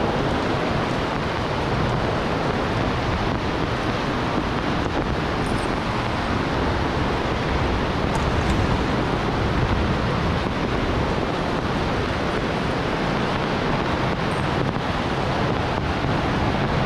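Heavy rain falling in a steady, even downpour, with water running off across the ground.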